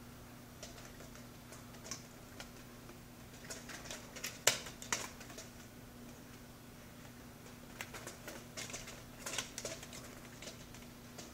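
Two cats wrestling on carpet: scattered rustles and light clicks from their paws, claws and bodies, in two flurries, one about four seconds in with the sharpest click and another a few seconds later.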